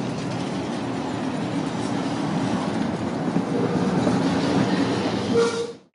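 Tram running past on its rails: a steady rumble of wheels and running gear that grows slightly louder, with a short wheel squeal near the end, then cut off suddenly.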